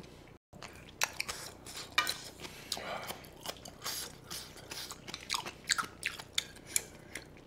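Close-miked chewing and biting of kimchi and beef bulgogi with rice: many short wet crackles and clicks from the mouth.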